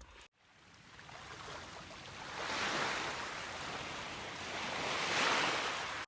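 Sea waves washing onto a beach, swelling once about two and a half seconds in and again near the end, then cutting off suddenly.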